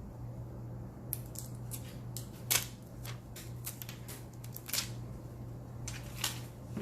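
Unboxing packaging being handled: a quick series of short, crisp clicks and crinkles of paper and plastic, irregularly spaced, with a steady low hum underneath.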